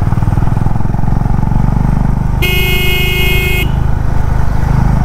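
Honda H'ness CB350 single-cylinder engine running steadily on the move, with a vehicle horn sounding once for just over a second a little after two seconds in.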